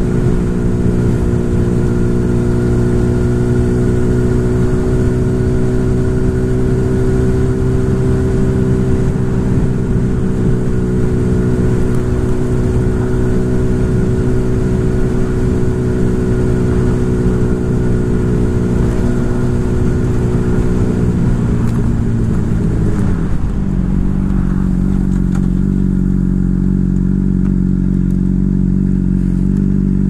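Sportbike engine running at a steady cruising pitch with low wind rumble on the microphone. About two-thirds of the way through the revs drop as the bike slows, then settle into a lower steady note.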